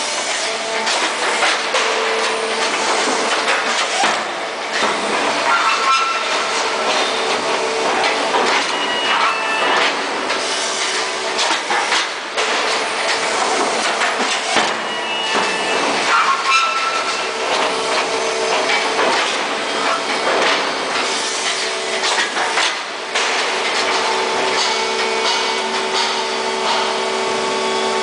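Concrete block-making machine running: a steady hum from its motors and hydraulics, dropping out and returning now and then, under continual metallic clanking and rattling of the mould and steel pallets.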